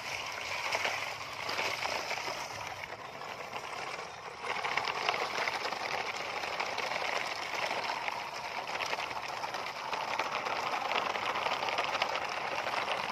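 Plastic toy dump trucks dragged through a shallow muddy puddle: a steady wash of splashing water around the wheels, getting louder about four seconds in.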